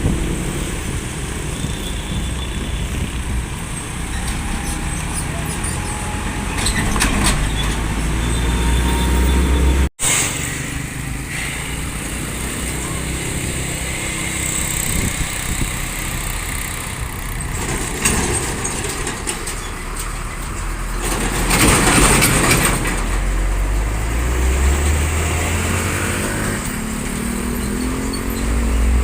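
Heavy road traffic: diesel trucks and buses running past. The sound cuts out for an instant about a third of the way through, and an engine's pitch climbs as it accelerates near the end.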